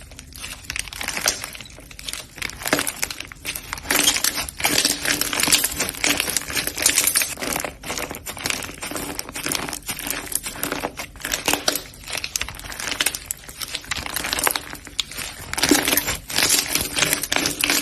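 Slime being squeezed and pressed by hand, giving a dense, irregular run of small crackling pops.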